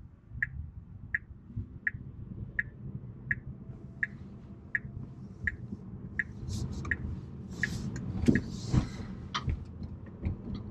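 Car turn signal ticking steadily inside the cabin, about one tick every 0.7 s, over a low rumble of road noise that grows somewhat in the second half.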